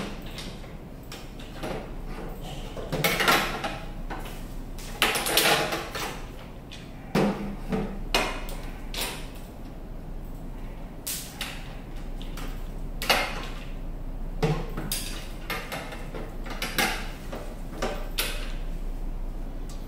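Metal lawnmower handle bars and their fittings being handled during assembly: about a dozen separate knocks, clinks and short rattles at irregular intervals over a low steady hum.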